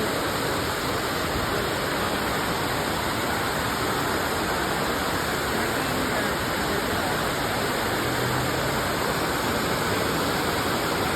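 Waterfall on a creek: water pouring and splashing in a steady, even rush.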